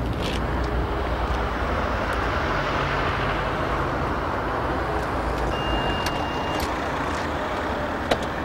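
Steady city street traffic noise, with a low engine hum in the first half. A brief high beep comes about six seconds in, and a couple of sharp clicks near the end.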